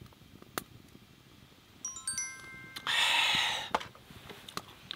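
A twinkling chime sound effect, several short bell tones at different pitches entering one after another, about two seconds in. It is followed by a loud, short, breathy exhale after a shot of liquor, then a few small clicks.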